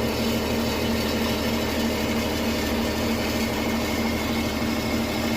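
2017 Porsche Cayenne's 3.0-litre V6 diesel engine running steadily, with a metal grinding noise that seems to come from underneath, between the engine and the gearbox.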